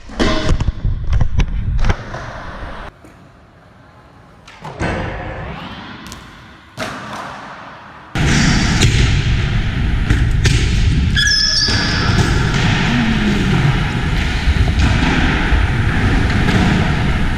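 BMX bike ridden in an indoor concrete skatepark. First comes a run of thuds and clattering as it drops down a set of concrete stairs, then a quieter stretch with a few knocks. From about eight seconds in there is a steady loud rush of riding over concrete, with a short squeak partway through.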